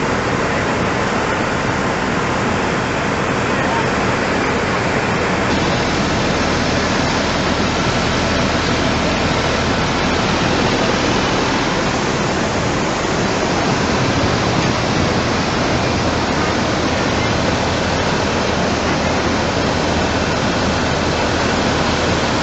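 Rushing floodwater: a loud, steady wash of noise with no pitch to it, growing brighter about five seconds in.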